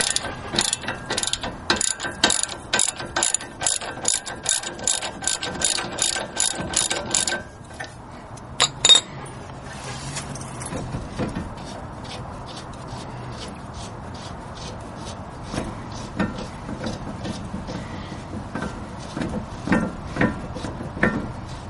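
Ratchet wrench clicking in quick, even strokes, about three a second, as it backs out the top bolt of the brake assembly. About seven seconds in the clicking grows fainter, with two sharper clicks shortly after, then goes on quietly at a steady pace.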